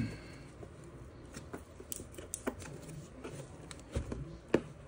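Fingers picking and scratching at packing tape on a cardboard shipping box: faint scrapes and rustles with a few small sharp ticks, trying to lift the tape without a knife.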